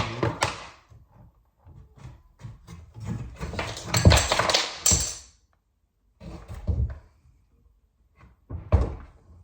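Wooden knocks and thunks from a door and its fittings being handled, with a sharp knock at the start, a longer scraping, rustling stretch in the middle, and a few more knocks near the end.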